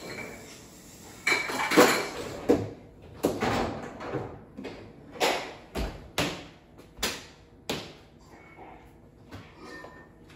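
Dishes and plastic cups clattering as a dishwasher is unloaded, with the dishwasher rack and cupboard doors knocking. It is a string of about a dozen sharp knocks and clinks that dies down near the end.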